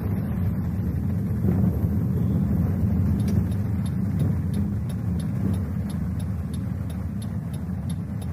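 Steady low rumble of a car driving on a highway, recorded by a dashcam inside the car. From about three seconds in there is faint high ticking, about three ticks a second.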